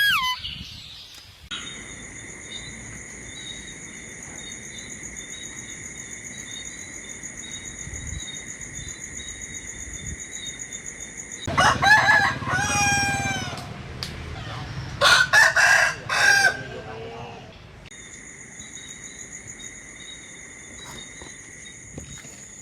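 A rooster crowing about halfway through, a long call that falls in pitch at the end, followed a few seconds later by a shorter crow. Underneath, a steady high chirring of insects such as crickets.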